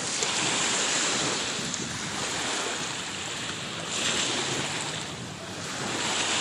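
Wind buffeting the microphone over small waves washing in on a lake shore, a steady rush of noise that swells louder about two-thirds of the way through and again near the end.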